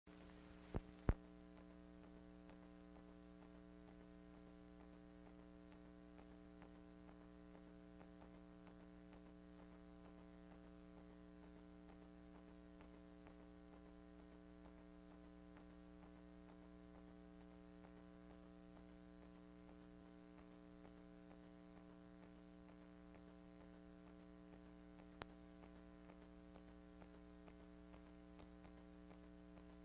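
Faint, steady electrical hum with many overtones, with two sharp clicks about a second in and one more click near the end.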